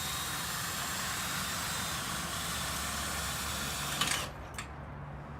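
Cordless drill with a 3/4-inch socket running steadily as it cranks an RV stabilizer jack, then stopping with a click about four seconds in.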